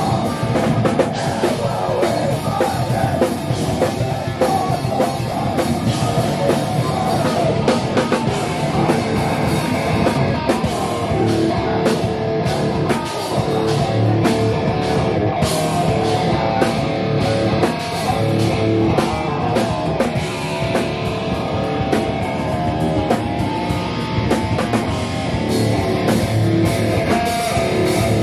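Rock band playing live: electric guitar and drum kit at a steady, loud level.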